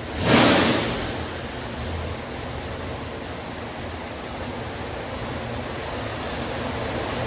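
Butler 462 cu in stroked Pontiac V8 running, a steady rushing engine noise, with a sudden loud burst of sound a third of a second in that dies away within a second.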